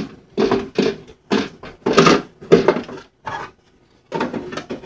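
Hard plastic clunks and rattles from a Keurig K55 coffee maker being handled, its water reservoir being taken off and set back onto the brewer. There are several sharp knocks over the first three seconds, a brief pause, then more clatter near the end.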